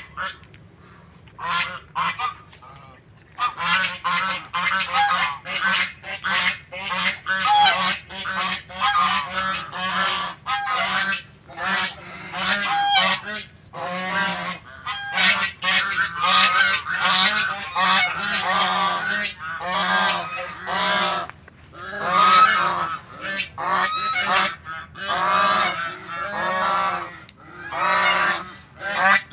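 Domestic geese honking. There are a few calls in the first three seconds, then a flock calling over one another almost without a break.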